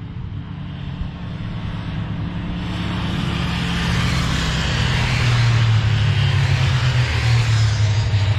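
Motorcycle engines running and growing steadily louder as the bikes approach, with a low steady hum and rising road and engine noise over the second half.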